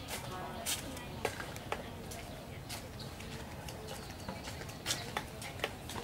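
A small green bird pecking at tree bark, giving a few sharp, irregular taps, with bird calls in the background.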